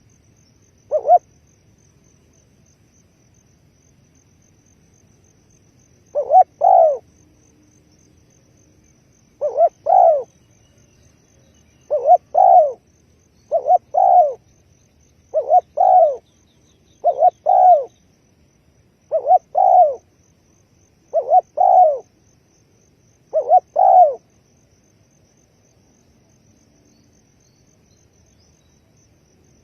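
Spotted dove cooing: a short note about a second in, then a run of about nine two-part coos, one every two seconds or so, falling silent near the end.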